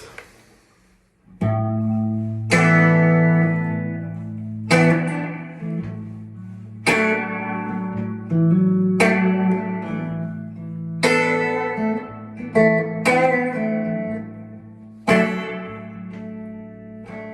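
Instrumental guitar introduction: chords strummed about every two seconds and each left to ring out, starting about a second and a half in.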